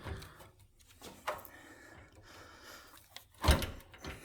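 A new riding-mower battery being handled and set down into its battery tray: faint scraping and rubbing, a light knock about a second in, and a louder thump a little after three seconds as it seats.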